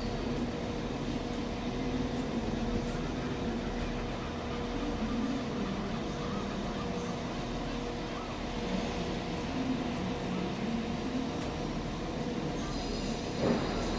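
Diesel freight locomotive engine running with a steady low drone and hum. A higher whine joins near the end.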